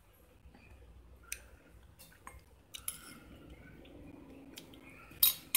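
A few scattered light clicks and clinks, with a louder one near the end.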